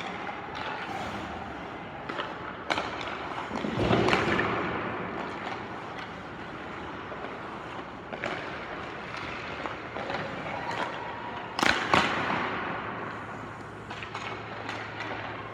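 Ice hockey drill on the rink: skates scraping the ice under a steady hiss, with several sharp cracks of sticks striking pucks on quick shots, the loudest about four seconds in and near twelve seconds.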